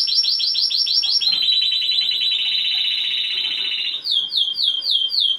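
Timbrado canary singing: a run of fast repeated clear notes, then from about a second in a long rapid rolled trill, then slower falling notes, about three a second, near the end.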